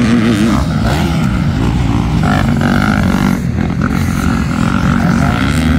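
Motocross dirt bike engines revving hard as several riders race past through a turn.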